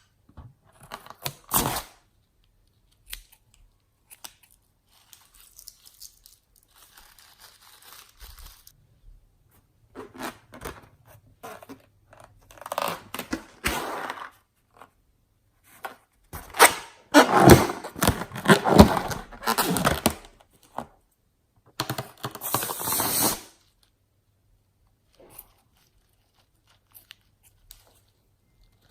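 Irregular rustling, tearing and crinkling handling noises in bursts of a second or two, loudest in a cluster about two-thirds of the way through, with quiet gaps between.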